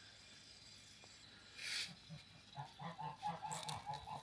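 Barnyard poultry clucking faintly in a quick run of short calls from about halfway through, after a brief swishing sound.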